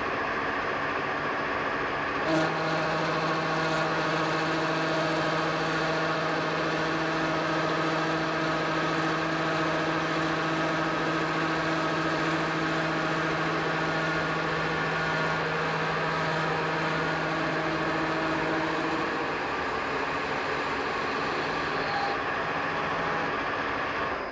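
A metal lathe running steadily, turning down a shaft. About two seconds in a click is followed by a steady pitched hum that lasts most of the way and fades near the end, and the machine noise stops at the very end.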